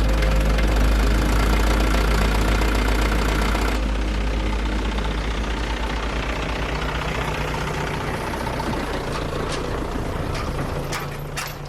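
A vehicle engine idling with a steady low rumble, dying away near the end.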